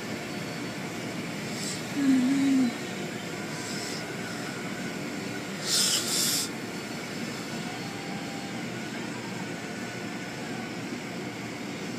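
Automatic car wash machinery running with a steady rumble. A short low wavering hum comes about two seconds in, and a brief hiss of spray about six seconds in.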